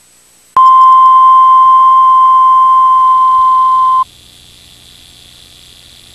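Steady line-up test tone, one unwavering pitch, accompanying colour bars at the head of a VHS tape; it starts abruptly about half a second in and cuts off about three and a half seconds later, leaving faint tape hiss and a low hum.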